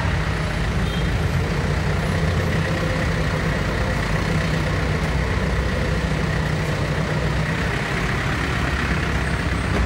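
Yanmar US40 tractor's four-cylinder diesel engine running steadily at idle.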